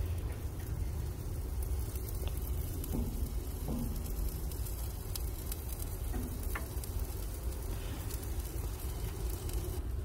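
Marinated chicken pieces and vegetable skewers sizzling on a charcoal grill over a steady low rumble, with a few faint clicks.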